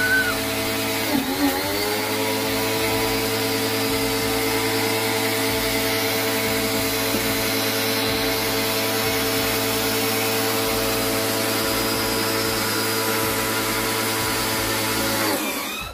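Black & Decker electric pressure washer running steadily with an even motor-pump hum. Its pitch dips briefly about a second in and recovers, and it shuts off suddenly just before the end.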